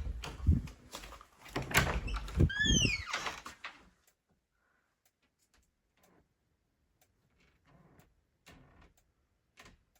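Knocks and thumps in a small room, with a short animal call that bends up and down about two and a half seconds in, then near silence with a few faint ticks from about four seconds on.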